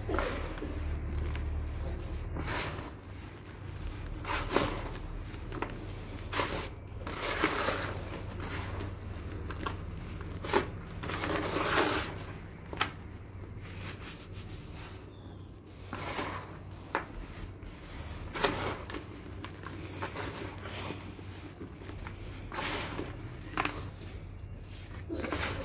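Hands crumbling and squeezing dry sand-and-cement mix in a plastic tub: irregular gritty crunching and rustling, with sharp crackles every second or two.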